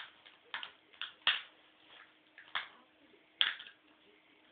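A Norwegian Elkhound puppy's teeth chewing a plastic TV remote: about six sharp, irregular clicks and cracks of plastic.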